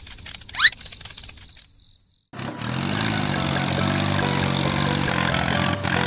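A faint outdoor background with one short rising chirp about half a second in. After a brief silent break about two seconds in, a small engine sets in and runs steadily, its pitch rising slightly at first.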